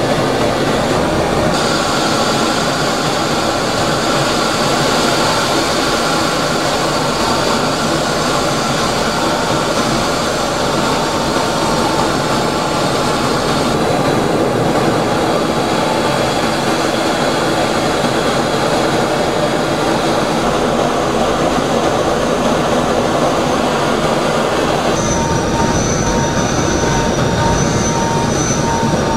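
Steady jet aircraft noise in flight: a continuous rushing engine and air noise with a faint high whine. Its tone shifts abruptly about a second and a half in, about 14 seconds in and about 25 seconds in.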